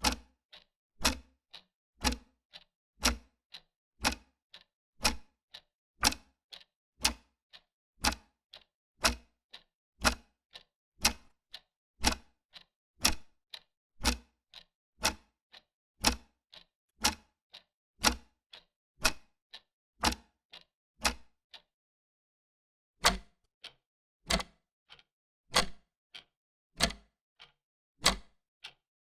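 Old clock ticking steadily: an even tick-tock of about two sharp clicks a second, alternating louder and softer, with a brief break a little past two-thirds of the way through before the ticking resumes.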